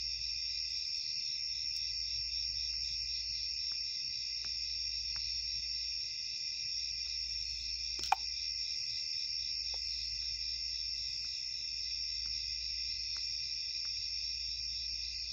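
A steady chorus of crickets or similar insects, with one band pulsing about four times a second. There is a single sharp click about eight seconds in, and a few fainter ticks.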